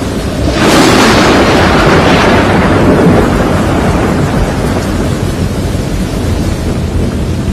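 Thunder: a sharp crack about a second in that rolls and fades over a few seconds, over a steady deep storm rumble.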